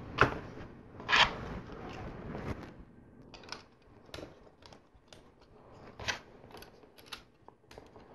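Plastic LEGO bricks clicking and tapping as pieces are handled and pressed onto a model, a scattering of short sharp clicks.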